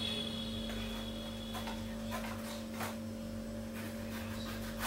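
Scissors cutting open a cardboard shipping package: a few scattered snips and scrapes over a steady low hum.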